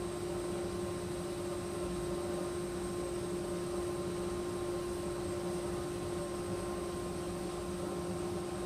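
A steady machine hum and hiss with a constant pitched tone, unchanging throughout; no separate knocks or mallet blows stand out.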